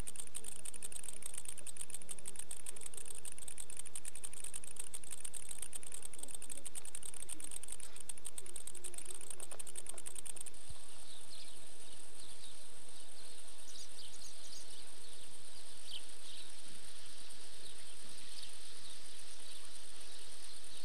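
Insects stridulating in the open: a fast-pulsing high buzz that changes abruptly about halfway through to a steadier high trill, with short high chirps scattered over it.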